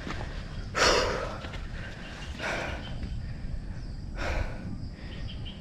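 A man panting hard from exhaustion, three heavy breaths about a second and a half apart, the first the loudest; in his own words he is breathing like a buffalo.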